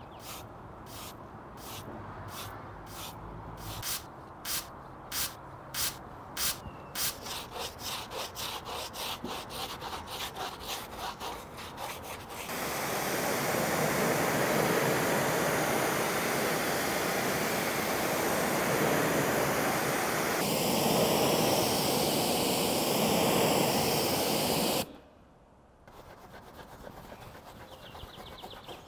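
Sharp clicking strokes that come faster and faster, typical of a pump-up sprayer being pumped. Then a pressure-washer jet sprays hard on an alloy wheel for about twelve seconds and cuts off suddenly, followed by a brush scrubbing the foamed wheel.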